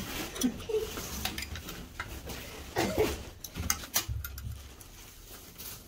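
Small metal parts of an electric iron's soleplate assembly clinking and tapping as they are handled and worked with pliers, in a string of sharp, irregular clicks.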